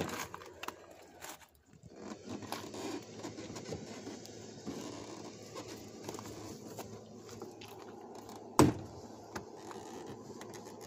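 Plastic retaining clips of a 2013 Chevrolet Silverado's door trim panel being pulled loose by hand, with the panel scraping and a few clicks. One loud pop comes about three-quarters of the way in.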